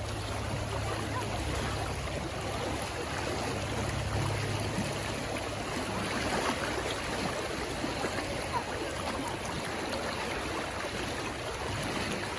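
Shallow river water running and babbling steadily.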